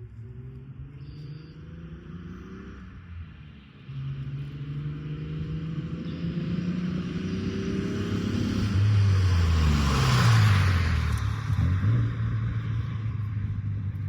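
Nissan 300ZX (Z31) V6 engine accelerating, its pitch climbing for several seconds, then dropping away. It is loudest about ten seconds in.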